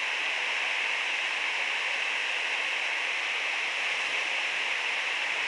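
Steady rushing hiss of flowing river current, even throughout with no splashes or other events.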